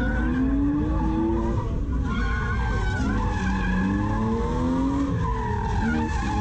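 A drift car's engine revving, its pitch rising and falling several times, with tyres squealing as the car slides.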